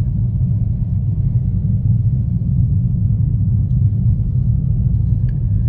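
Steady low rumble of a 2020 Toyota Corolla hatchback driving on a snow-covered road, its engine and tyres heard from inside the cabin.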